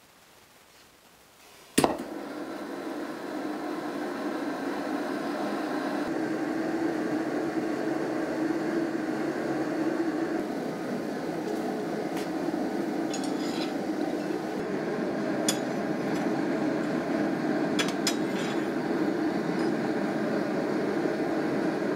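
Gas forge lit with a sharp pop about two seconds in, then its burner running with a steady rushing noise that builds a little over the next few seconds. A few faint metallic clinks come later.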